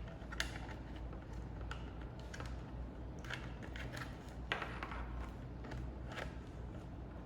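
Light handling noise: scattered small clicks and taps of hands working a device and its cable, a few seconds apart, over a steady low hum.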